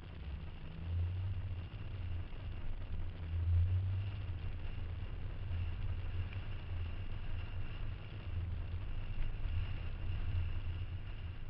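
A moving car's low engine and road rumble, heard from inside the cabin, swelling and easing a little as it drives.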